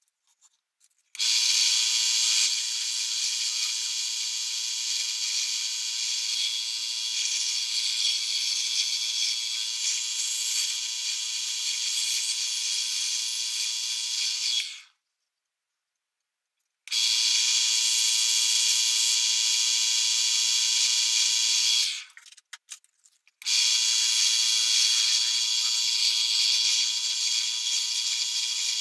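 Central Machinery 10x18 mini wood lathe (Harbor Freight item 65345) running with a steady whine as it spins a small spindle. It starts about a second in and stops about halfway through, then after a short pause runs again. It stops once more for about a second and starts again near the end.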